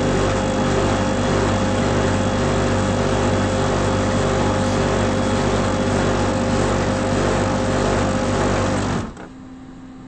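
Xerox photocopier running: a steady mechanical whir over a low hum. It stops about nine seconds in, leaving a much quieter steady hum.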